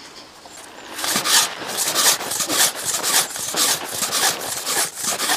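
A toddy tapper's knife (chettukathi) being whetted on a wooden sharpening paddle: quick rasping strokes, about three to four a second, starting about a second in.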